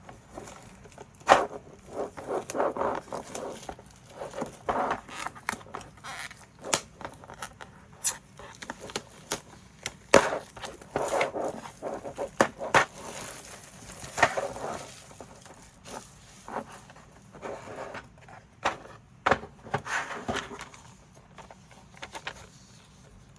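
Keycap set and its plastic packaging being handled: scattered sharp plastic clicks and clacks, with brief rustling and scraping between them.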